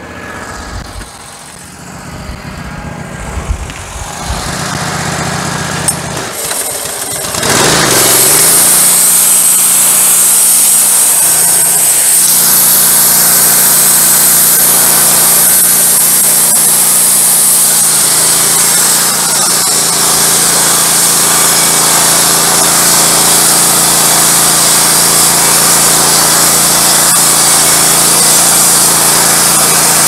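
Wood-Mizer LT15 Go sawmill's gas engine idling, then revving up with a rising pitch about a quarter of the way in. It then runs loud and steady at full speed, driving the band blade, with a strong high hiss.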